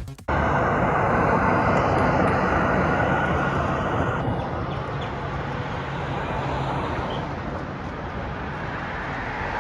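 Steady engine noise with a low hum and a rushing sound, slowly growing quieter, starting just as music cuts off.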